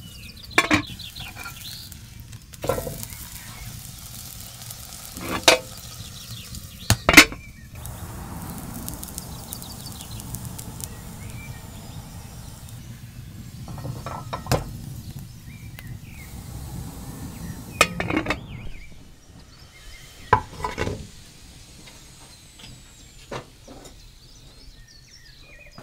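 Aluminium pot and its lid clanking sharply several times as the lid is handled, over a low steady sizzle of flatbread dough cooking in the hot pot.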